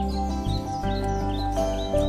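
Background music: sustained notes over a steady bass, with short high chirps repeating through it a few times a second.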